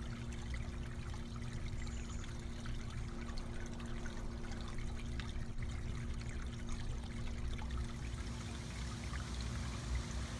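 Water trickling steadily in a garden pond water feature, with a steady low hum underneath.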